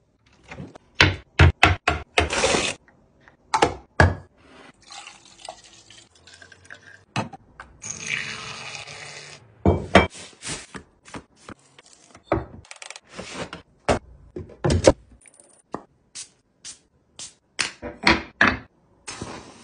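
Bathroom items being handled and set down on hard surfaces: a string of short clicks, taps and knocks of plastic and ceramic pieces, with a hiss lasting about a second and a half near the middle.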